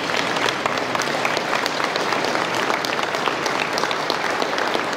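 Seated audience applauding steadily, many hands clapping at once.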